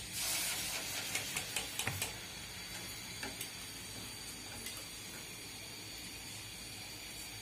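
Rice batter on an iron flower-pitha mold frying in hot oil: a burst of sizzling as the mold goes in, then a steady low sizzle. A string of light metal clicks and taps in the first two seconds as the mold and spatula knock against each other and the steel wok.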